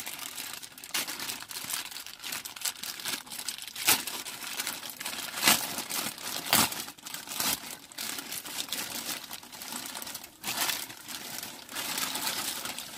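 Plastic courier mailer bag crinkling and rustling as hands pull it open, with irregular sharper crackles.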